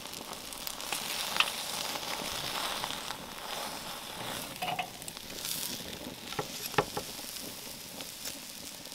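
Thick beef steaks fresh off the charcoal embers sizzling with a steady hiss, their surface freshly seared, with a few sharp crackles.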